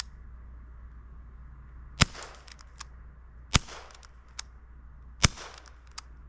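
CO2-powered BB gun fired three times, sharp pops about one and a half seconds apart, with fainter clicks between them. These are repeated shots at a rabbit, several of which missed.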